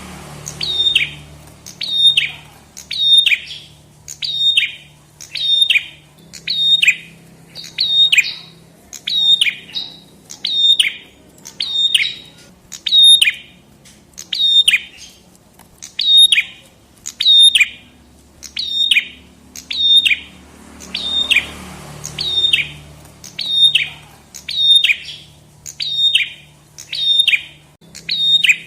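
Prenjak kepala merah (red-headed prenjak) calling over and over, about once a second: each call a short, sharp note that falls in pitch, in an even rhythm.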